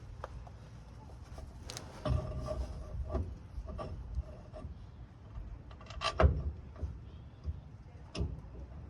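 Scattered clicks, scrapes and knocks of hand tools and driveshaft bolts being handled and threaded into the driveshaft flange, with one louder knock about six seconds in.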